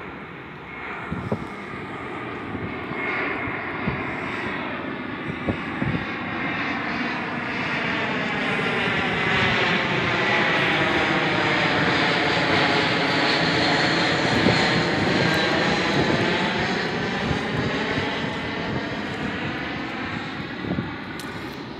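British Airways Airbus A321 jet on landing approach passing low overhead: the engine and airframe rush swells to its loudest about halfway through, with a sweeping, shifting tone as it goes over, then fades away.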